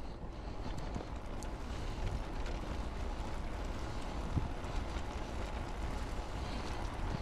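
Wind rushing over a GoPro's microphone on a moving bicycle, a steady low rumble mixed with tyre and road noise, with one knock about four and a half seconds in.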